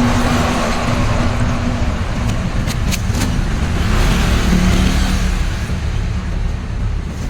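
An engine running, its pitch shifting a little, with three sharp clicks about halfway through.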